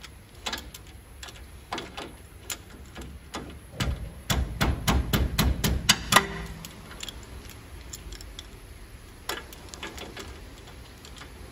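Ratchet wrench clicking as it turns the tie-rod end castle nut at a Toyota Prado 78's steering knuckle arm, backed off to line up the cotter-pin hole. Scattered single clicks, then a fast run of clicks for about two seconds in the middle, then a few more.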